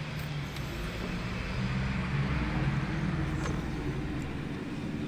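Car engine and tyre noise heard from inside the cabin as the car drives through a turn and along a street. The engine note swells and gets louder a couple of seconds in as it picks up speed, then eases off.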